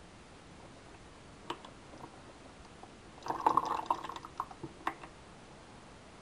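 Liquid sloshing and dripping in a glass bowl as it is tilted, with a few light clicks; the loudest burst of splashing comes a little past the middle.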